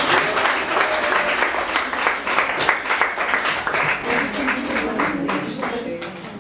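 Audience applauding: dense, irregular clapping from many hands, easing slightly near the end.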